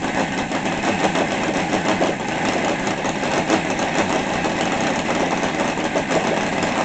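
Seidel 7-70 70cc seven-cylinder radial model engine idling steadily on a test stand, running on a methanol and nitro fuel mix.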